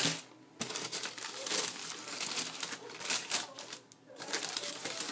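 Paper and packaging rustling and crinkling with small clicks and knocks as a boot box is unpacked by hand, in short spells with brief pauses about half a second in and around four seconds in.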